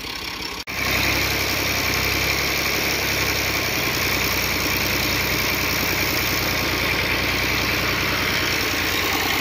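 Farm tractor's diesel engine running steadily under load as it pulls a heavily loaded trolley out of soft muck. The sound breaks off briefly less than a second in, then comes back louder and holds even.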